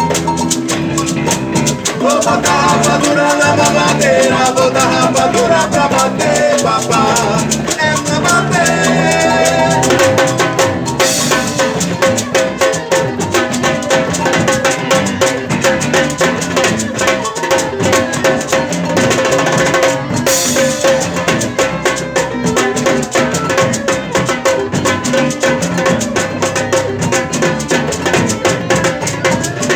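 Live band music with a drum kit and shaker-type percussion keeping a steady beat; an instrumental passage with no lyrics sung.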